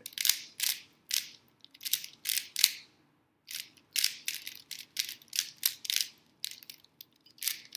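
Rubik's cube being scrambled by hand: a quick run of plastic face turns clicking and clacking, about two or three a second, with a short pause a little after three seconds in.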